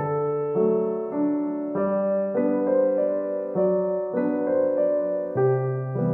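Background piano music: soft chords with a new chord about every half second.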